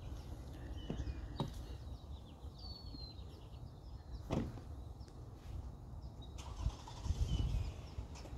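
Outdoor lakeside park ambience: a steady low rumble with a few short bird chirps and a soft knock about four seconds in.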